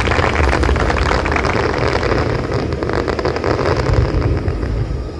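Fireworks display: a continuous barrage of deep booms and dense crackling, easing a little near the end.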